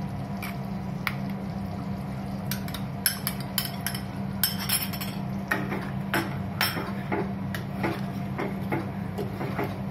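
Steel ladle clinking and knocking against a stainless steel pot and a plastic tub as yogurt is scooped into a curry and stirred in, in irregular strikes mostly in the second half. A steady low hum runs underneath.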